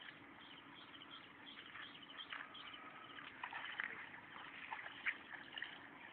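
Faint scattered bird chirps and calls, with light water splashing from a hooked fish thrashing at the surface.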